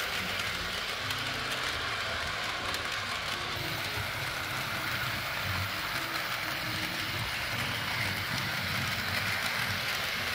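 Bachmann On30 model steam locomotive and its train running on the track: a steady whir of the small electric motor and gears, with the wheels rolling over the rails.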